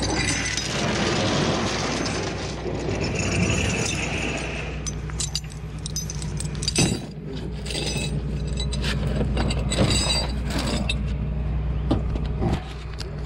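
Tow chains clinking and rattling as they are handled and hooked to a car, with several sharp metal clanks, the loudest about seven and ten seconds in. Under it a tow truck engine runs with a steady low hum.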